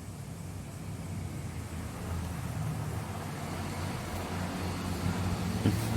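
A steady low rumble, like engine or traffic noise, that slowly grows louder, with a short knock near the end.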